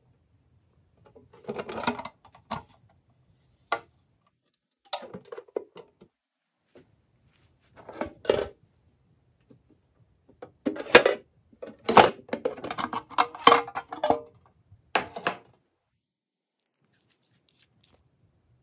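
Slime being mixed with small add-ins, giving irregular bursts of sharp clicks and crackles. The bursts come in clusters, with the densest run a little past the middle.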